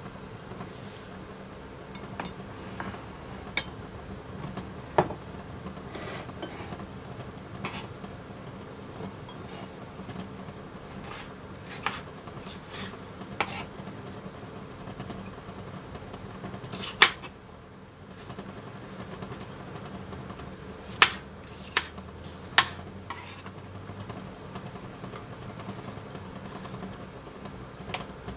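Kitchen knife cutting tomatoes into wedges on a wooden cutting board: irregular sharp knocks of the blade meeting the board, mixed with clinks of ceramic as the wedges go onto a plate, a few of them much louder. A faint steady hum runs underneath.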